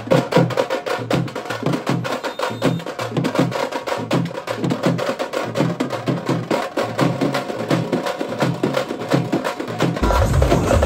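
Drums played fast and hard, dense sharp strokes in a driving rhythm. About ten seconds in it gives way to music with a heavy bass.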